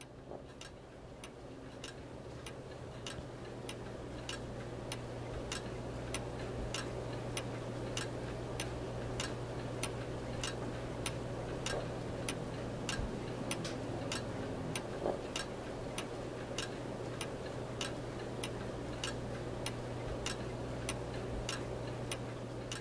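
Urgos 8-day weight-driven pendulum wall clock ticking steadily, growing louder over the first several seconds, with a steady low hum underneath.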